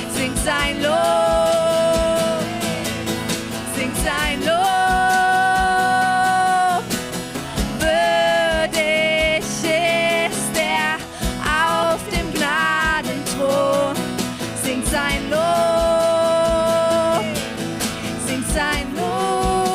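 Worship band music: a voice singing long held notes over guitar and a full band accompaniment.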